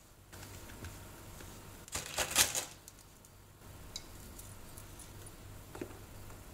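Thin plastic biscuit wrapper crinkling in a short burst about two seconds in as savoiardi are pulled out of the packet, followed by a few faint ticks.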